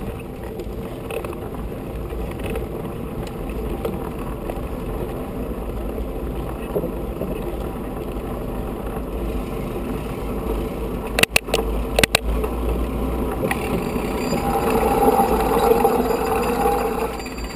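Mountain bike rolling across a wooden plank footbridge: a steady rumble of tyres over the boards, with wind rumble on the bike-mounted camera's microphone. Two sharp knocks come a little past the middle, and the noise grows louder near the end.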